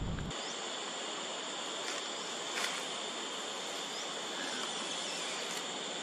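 Forest insects buzzing steadily, two high-pitched drones over a soft hiss, with a few faint clicks and short chirps. A low rumble cuts off just after the start.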